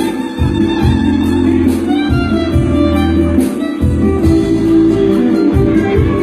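Violin playing a melody over a backing track with a bass line and a steady beat.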